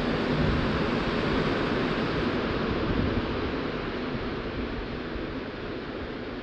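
Rumble of a rubber-tyred Montreal Metro train receding into the tunnel, fading steadily. A low hum drops away about halfway through.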